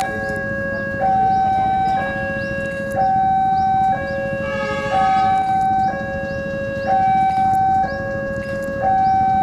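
Railway level-crossing warning alarm sounding a two-tone high-low pattern, switching pitch about once a second, with the low sound of an approaching diesel locomotive underneath.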